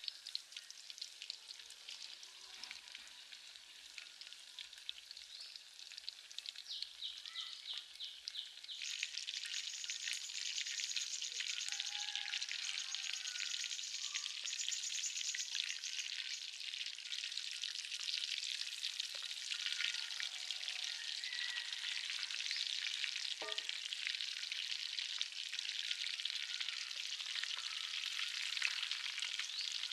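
Batter-coated chicken legs deep-frying in hot oil in a steel wok: a dense, crackling sizzle that grows louder about nine seconds in.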